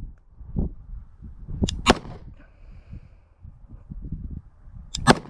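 Pistol shots from a Glock 20 fitted with an Alpha Wolf .40 S&W conversion barrel, firing .40 S&W rounds and cycling: two shots in quick succession about two seconds in and two more near the end, over low wind rumble on the microphone.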